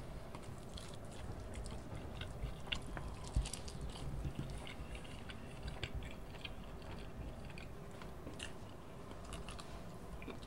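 A person biting into and chewing chicken, with many small clicks scattered throughout.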